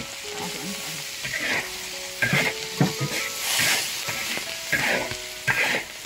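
Chopped pickled ginger, chillies and garlic sizzling in hot oil in a large iron wok, with a metal spatula stirring and scraping against the wok at irregular intervals.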